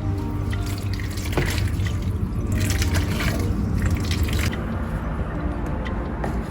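Water running and dripping, with a hissing rush from about one to four and a half seconds in, over a steady low hum.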